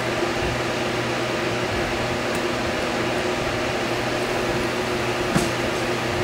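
Steady mechanical hum like a fan or air conditioner running, with a couple of faint light clicks about two seconds in and about five seconds in.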